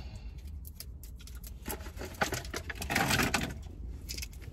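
Plastic toy packaging and sticky tape rustling and crinkling in the hands as an action figure's accessories are worked free, with many small clicks and two louder bursts of rustling about two and three seconds in. A low steady hum runs underneath.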